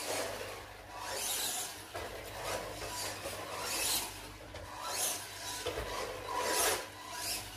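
RC monster truck's brushed RC390 motor and tyres scrubbing on the floor in short bursts of throttle: a rasping whir that swells and fades about once a second.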